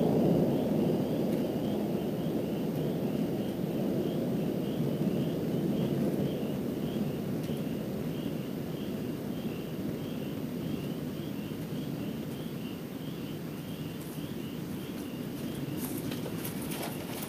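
Distant thunder rolling, a low rumble that slowly fades away. Behind it a faint high chirping repeats about twice a second, and a few sharp clicks come near the end.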